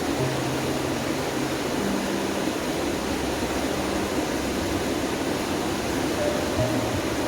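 Waterfall: a steady rush of falling water, with a few faint held low notes of soft background music under it.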